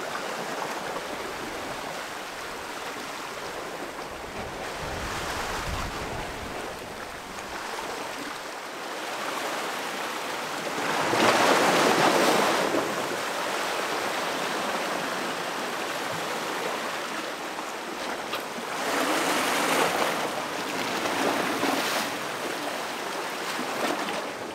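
Sea surf washing and breaking against a rocky shore, a steady rush with several louder surges of breaking waves, the biggest about halfway through.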